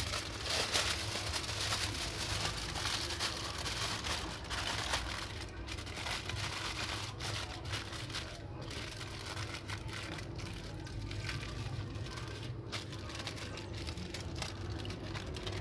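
Aluminium foil crinkling and crackling as hands fold and press it into a parcel around a fish. The sound is loudest in the first few seconds, then quieter with scattered small crackles.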